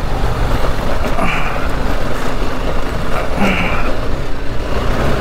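Motorcycle engine running with a steady low rumble, with two brief higher-pitched sounds about a second in and about three and a half seconds in.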